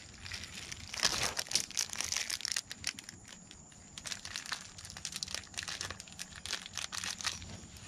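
Plastic bag crinkling and rustling in gloved hands in irregular spurts, while pipe fittings are handled.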